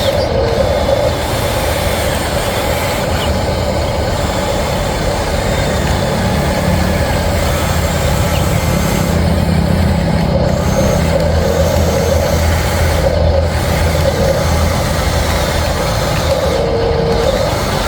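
Radio-controlled construction vehicle running steadily with continuous motor and drivetrain noise, a low hum swelling in the middle.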